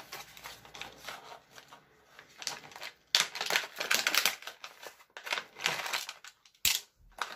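Crinkling of a stand-up tool-kit pouch being handled and opened by hand, in several short bursts of crackle, with a sharp click near the end.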